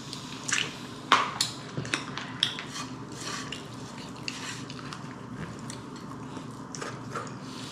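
Eating sounds close to the microphone: chewing, with a run of sharp clicks and clinks of cutlery against a dish, the loudest about a second in and sparser later.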